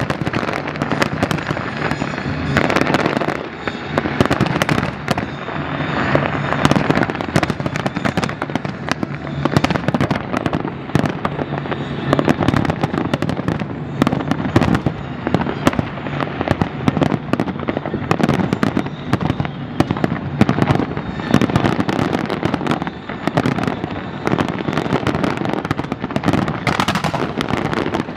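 Professional aerial fireworks display: shells bursting and crackling in rapid succession, many reports a second with no pause.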